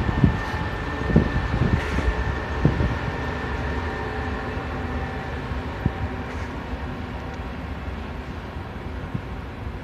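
A freight train hauled by an SNCB Class 13 electric locomotive passes by: a steady rumble of wheels on rails with scattered low knocks. A thin high whine sounds through the first two seconds and fades, and the whole sound slowly gets quieter.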